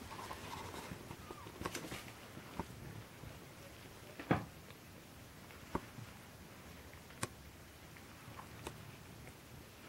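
A Norwegian Forest Cat and its kitten playing on a blanket: soft scuffling with a handful of sharp taps scattered through, the loudest about four seconds in.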